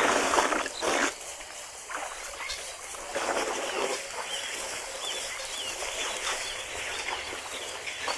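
African elephants drinking at a waterhole: bursts of water splashing and sloshing as trunks draw up and spray water, several in the first second and another longer spell about three seconds in. Faint short bird calls come in the middle.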